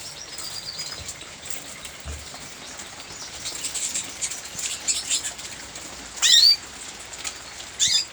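Canaries calling in a flight cage: many short high chirps, then two loud sweeping call notes near the end, with wings fluttering among them.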